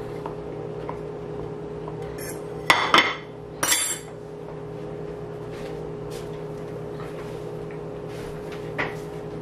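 Sharp clatters of tableware: a quick cluster of three clinks and knocks about three seconds in and one small tap near the end, over a steady hum.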